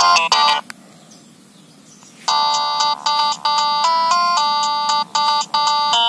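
Nokia 3200 ringtone previews from the phone's speaker. A fast run of short beeping notes cuts off about half a second in, and after a short pause another ringtone starts about two seconds in, with held chords of several notes at once in a steady rhythm.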